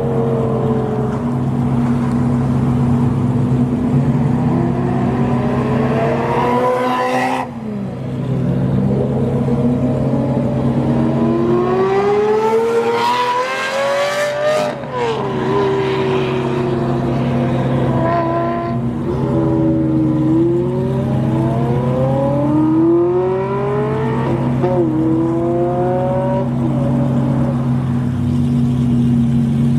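High-performance car engines revving hard as the cars accelerate away, the pitch climbing and then dropping at each upshift, several times, over the steady drone of an idling engine.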